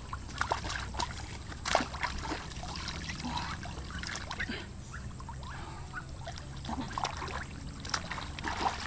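Water splashing, sloshing and dribbling in a shallow muddy pond as a person wades and handles a duck in the water, with sharper splashes about two seconds in and near the end.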